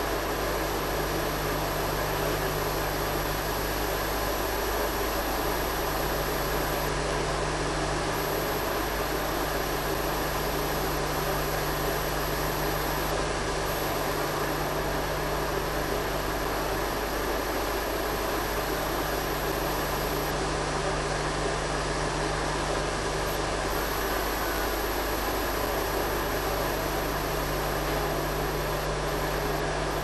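Steady hiss with a low electrical hum, unchanging throughout: background noise of an old video recording, with no distinct animal call heard.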